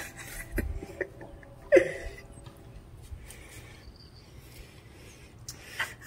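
A person's short wordless vocal sound about two seconds in, with a smaller one near the end, over faint low rumble and background hiss.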